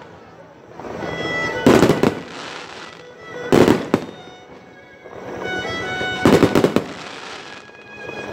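Aerial firework shells bursting: a loud bang about two seconds in, another just before four seconds, and a rapid cluster of bangs and crackling in the second half. Music plays underneath throughout.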